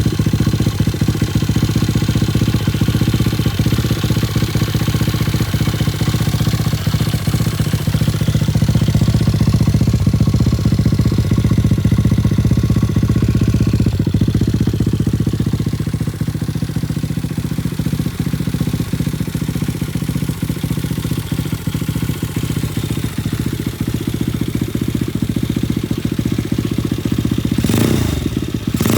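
Chinese Monkey clone's small single-cylinder four-stroke engine idling steadily through an Akrapovic-style aftermarket silencer. Near the end the sound briefly rises and falls, with a short burst of noise.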